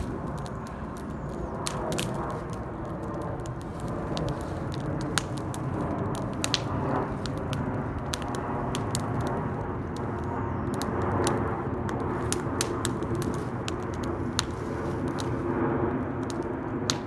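Wood crackling and snapping in scattered small cracks as a log being split is worked apart by hand, over a steady low hum.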